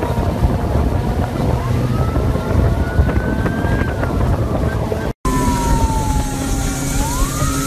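Motorcycles riding on a street, engine rumble and wind on the microphone, with a siren wailing over it, its pitch sliding slowly down and up. The sound drops out for an instant about five seconds in and the same mix resumes, the siren again falling then sweeping up.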